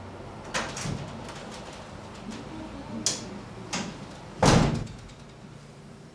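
A door being opened and let swing shut: a few sharp clicks from its handle and latch, then the door closes with one loud thud a little over four seconds in.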